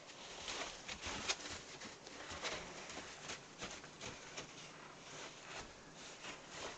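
Sawdust bedding rustling and crunching as a ferret burrows and tumbles through it, in quick irregular scratchy rustles.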